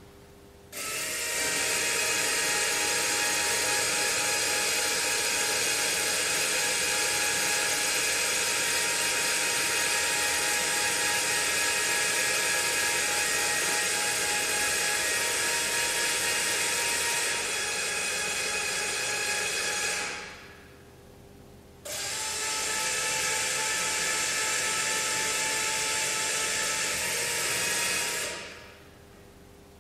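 Small electric motor whining steadily as it drives a hanging light sculpture's coil. It starts abruptly, dies away about twenty seconds in, starts again a second or so later and winds down near the end.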